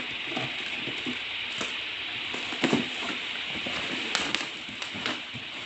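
Steady whooshing hiss of an electric fan, with scattered clicks and knocks of packaging and a boxed power tool being handled, the sharpest about two and a half and four seconds in.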